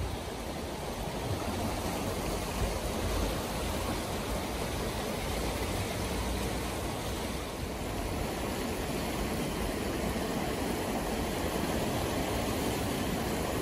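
The Aare river running very high and fast: a steady rush of turbulent water.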